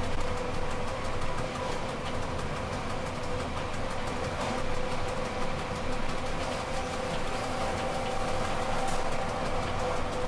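Running noise of a Rhaetian Railway train under way, heard from its front cab: a steady hum with a few held whining tones from the drive over the rumble of wheels on the rails.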